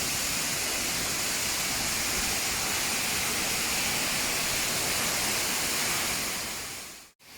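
Steady rush of a waterfall, falling water making an even noise that fades out near the end.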